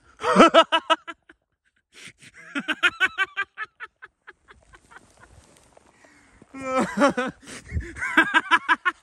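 Hearty laughter in three bouts: one at the start, one about two seconds in, and a longer one from about six and a half seconds to the end.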